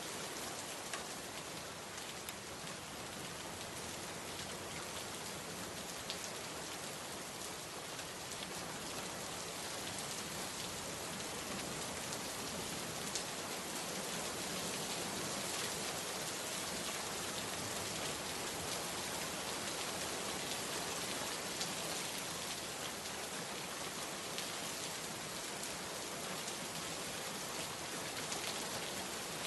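Steady heavy rain falling on hard surfaces, a dense hiss scattered with individual drop ticks, growing slightly louder about a third of the way in.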